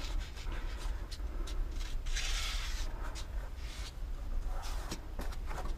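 Hands pressing and sliding over adhesive-coated cab foam sheet while folding its edges over, with small handling clicks and a soft brushing rustle lasting about a second, starting about two seconds in. A low steady hum sits underneath.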